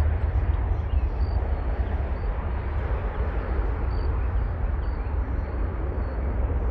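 Boeing 777-200ER's twin Rolls-Royce Trent jet engines at takeoff power as the airliner lifts off and climbs away: a steady deep rumble with a rushing noise over it.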